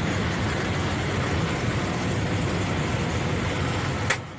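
Steady, loud cabin noise inside a single-engine light plane in flight during a forced descent. A little after four seconds there is one sharp knock, and the noise then drops away.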